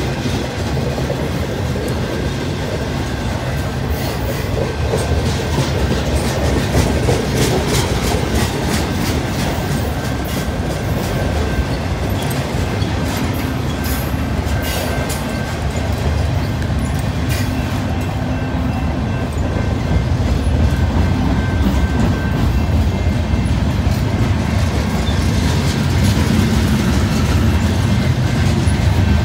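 CSX mixed freight train's cars rolling past close by: a steady heavy rumble from boxcars, autoracks and covered hoppers, with wheels clicking rapidly over the rail joints.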